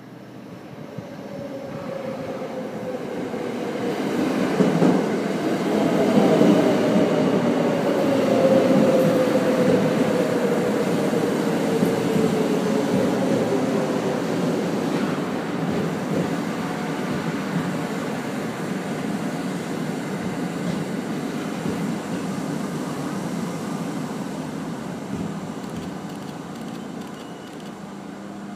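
JR West 681 series electric train (prototype set W01) pulling into the platform and braking to a stop. Its motor whine drops slowly in pitch as it slows, over wheel and rail rumble that builds to a peak about six seconds in and then fades away.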